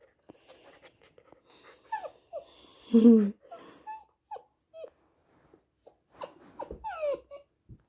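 Young husky–bernedoodle puppy whining in a series of short cries that fall in pitch, the loudest a lower yelp about three seconds in.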